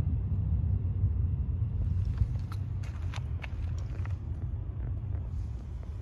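Steady low rumble of wind on the microphone, with a handful of sharp ticks about two to four seconds in.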